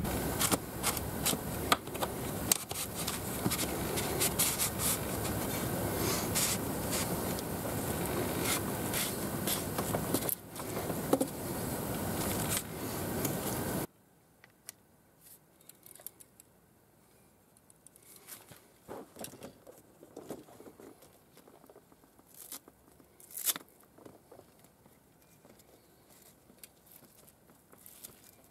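A loud, steady rushing noise with scattered clicks, cutting off suddenly about halfway. Then faint, scattered scrapes and clicks of fishing gear and kayak fittings being handled.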